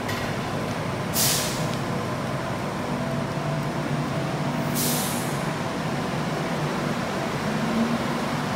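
Bombardier light rail vehicle at the platform: two short, sharp hisses of released air, about a second in and again near five seconds in, over the steady hum of the vehicle's motors and equipment.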